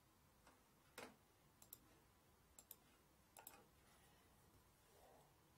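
Faint, scattered clicks over near silence, several in close pairs, from the digital pen used to select, move and write on the on-screen page.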